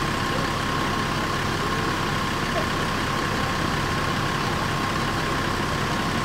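Scania K410iB coach's 13-litre inline-six diesel running at low revs as the bus creeps forward, a steady low rumble with a steady high whine above it.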